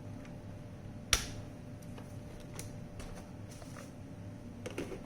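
Sharp clicks and light taps of hard plastic parts being handled, as on a robot vacuum cleaner being worked on: one loud click about a second in, scattered faint ticks, and a cluster of small clicks near the end.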